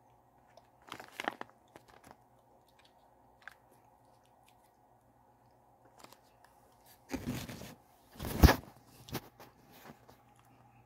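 Irregular rustling, crunching and knocking from handling close to the microphone. The loudest is a rub about seven seconds in, then a heavy thump about a second later.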